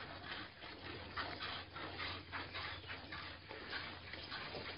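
Piglet suckling at a cow's teat: a quick, irregular run of short wet sucking and smacking clicks over a low steady hum.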